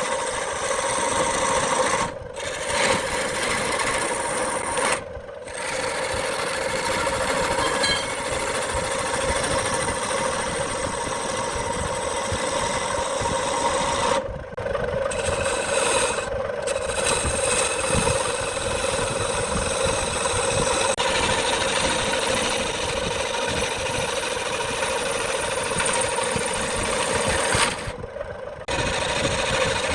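Wood lathe running with a steady motor hum, under the rough scraping hiss of a tool or abrasive working a spinning wood-and-epoxy blank. The hiss breaks off briefly several times.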